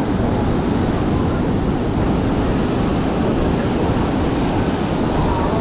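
Steady noise of breaking surf on the beach, with wind rumbling on the microphone.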